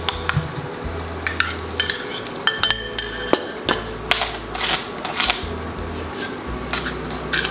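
A metal spoon clinking and scraping against metal cooking vessels, a string of sharp knocks, one about three seconds in ringing on briefly, with background music under it.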